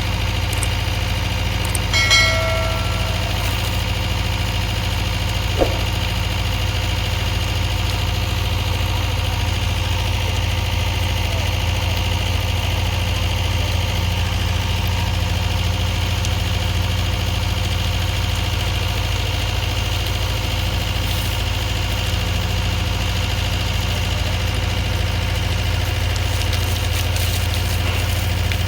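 Komatsu PC210 excavator's diesel engine idling with a steady low hum. A brief high-pitched beep sounds about two seconds in.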